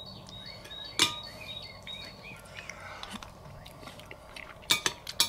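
A metal spoon clinking against a ceramic bowl of stew while someone eats: one sharp clink about a second in and several quick clinks near the end. Small birds chirp in the background.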